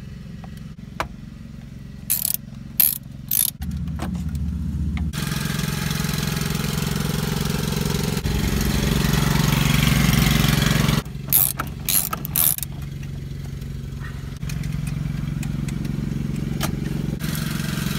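Ratchet and socket driving the radio's anti-theft screws back into its mounting brackets: a few sharp metallic clicks about two to three seconds in and again around eleven to twelve seconds. A steady low engine hum runs underneath throughout.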